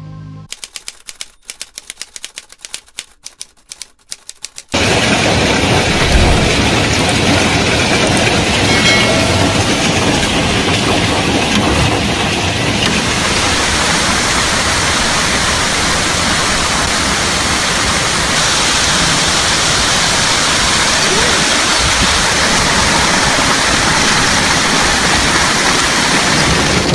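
Heavy hailstorm: hailstones pelting the ground in a dense, steady clatter. The clatter starts abruptly about five seconds in, after a few seconds of scattered sharp clicks.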